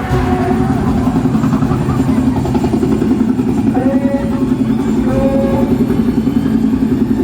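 A motor running steadily with a fast, even pulse, with brief faint tones about four and five seconds in.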